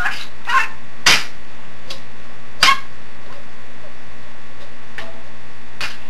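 Budgerigar giving short, sharp chirps: three within the first second or so and one more about two and a half seconds in, over a steady low hum.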